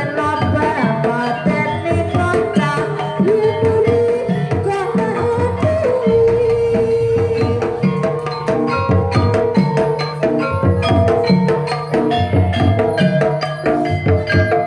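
Live ebeg (Javanese horse-trance dance) gamelan music: kendang hand drums beating a steady rhythm under ringing metallophones and gongs. A long note is held over it from about six seconds in.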